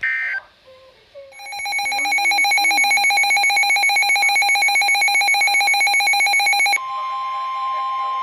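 A brief burst of warbling digital alert data, then, about a second in, a weather alert radio's electronic alarm beeping in rapid pulses. Near the end it switches to the steady NOAA Weather Radio warning alarm tone, which heralds a new warning broadcast.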